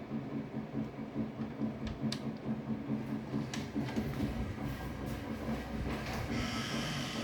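A steady low mechanical rumble pulsing about three times a second, with a few faint sharp knocks scattered through it and a hiss rising near the end.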